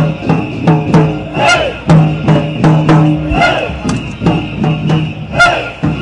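Street protest crowd with drums beating a fast steady rhythm, about three hits a second, over a low droning tone. A rising-and-falling call rings out about every two seconds.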